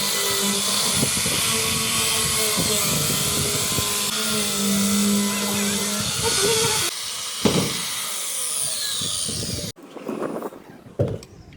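An electric power tool running steadily on wood, with a constant whine over a loud rush of noise, then stopping abruptly near the end, followed by a few light knocks.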